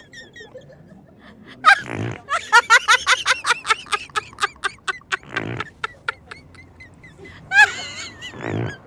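Three fart noises, each a low buzzy blurt of about half a second, about two seconds in, around the middle and near the end. They are answered by bursts of high-pitched laughter and yelps, with a rapid run of short laughs just after the first one.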